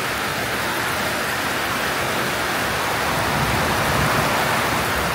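Heavy downpour pelting a paved path, a steady hiss of rain splashing onto wet asphalt and standing water.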